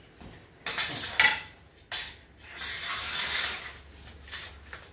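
Hand-tool work on a car's exhaust: several irregular bursts of metallic scraping and clicking, the loudest about a second in and a longer one around three seconds in.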